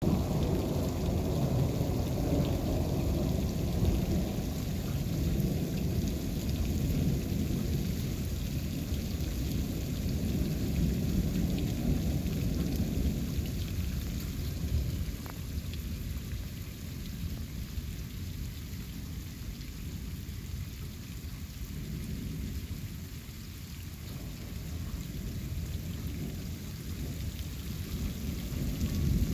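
Thunder rumbling over steady rain: long low rolls, heaviest in the first half, easing about halfway through and building again near the end.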